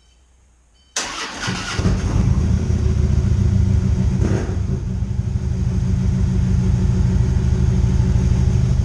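2015 Harley-Davidson Road Glide Special's V-twin engine starting about a second in, then settling into a steady idle.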